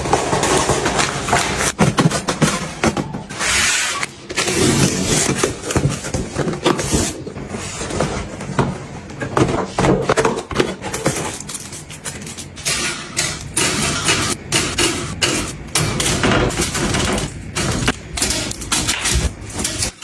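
Packaged goods being handled and set down: plastic tubs and canisters knocking into a stainless-steel wire basket, and cardboard boxes and cartons being moved. It makes a dense, continuous run of taps, knocks and thumps.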